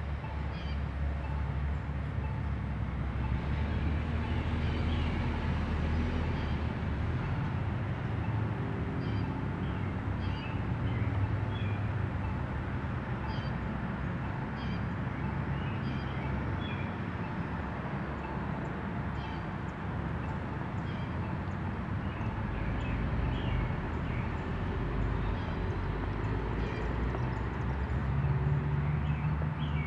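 Outdoor ambience: a steady low rumble with many short, high bird chirps scattered through it.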